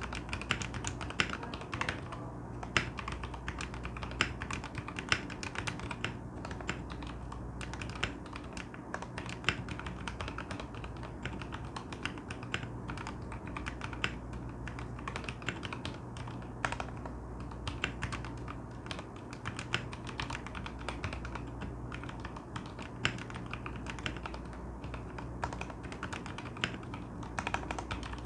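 Typing on a modded Vortex Series VX6 mechanical keyboard with Gateron Brown switches on 80 g springs, lubed with Krytox 205g0, with case and plate foam and PBT XDA keycaps: a steady stream of keystrokes with occasional louder strokes.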